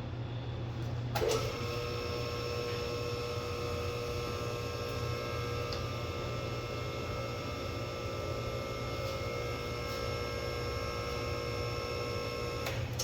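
A machine's steady whine starts with a click about a second in, runs at an even pitch, and clicks off near the end, over a constant low hum.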